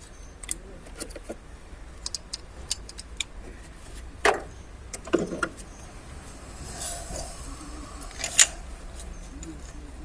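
Light metallic clicks and clinks of a spark plug and hand tools being handled and fitted into the engine, with sharper knocks about four, five and eight seconds in.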